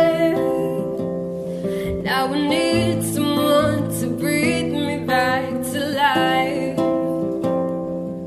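A young woman singing a slow ballad in phrases over an acoustic guitar accompaniment.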